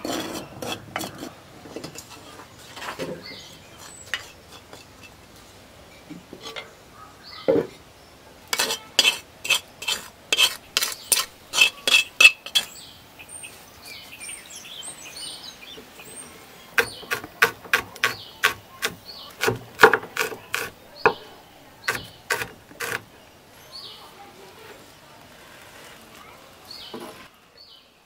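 A spoon clicking and clinking against a clay cooking pot as spice is scooped and added, in two runs of quick taps, one about a third of the way in and another about two-thirds in, with softer scattered knocks between.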